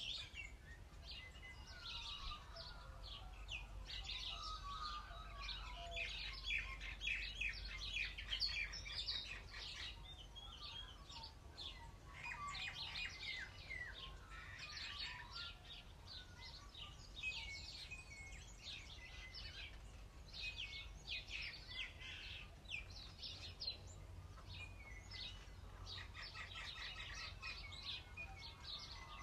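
Outdoor birdsong chorus: several birds singing at once, with many quick, high chirps and trills overlapping and some lower gliding calls among them.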